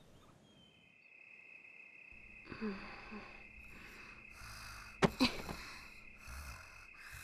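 Quiet night ambience: a steady high cricket-like chirr, with soft, regularly repeating breathing sounds from a sleeper. A short sharp snort-like sound comes about five seconds in.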